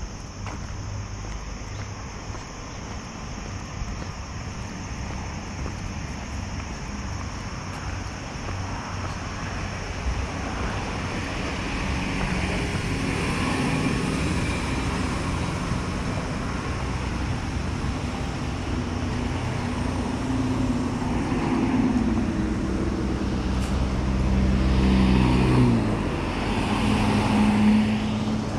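Road traffic: cars running along a nearby road, growing louder as the road comes closer. Near the end a vehicle passes close, its engine hum dropping in pitch as it goes by.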